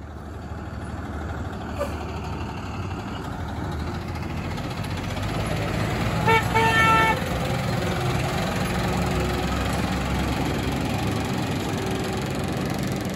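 A Ford medium-duty boom truck's engine running as it drives along, growing louder over the first few seconds. About six seconds in, a vehicle horn gives two short toots.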